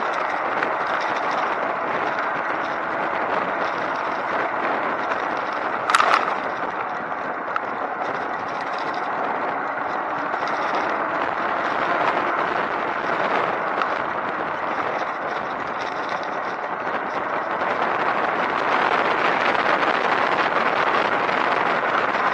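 Steady rushing wind and road noise from riding a recumbent bike, with one sharp click about six seconds in.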